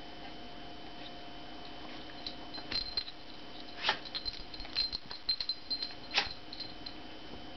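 Silky terrier scrambling about in play, making a scatter of light clicks and taps with a bright high ring to some of them, loudest about four seconds in and again about six seconds in, over a steady faint hum.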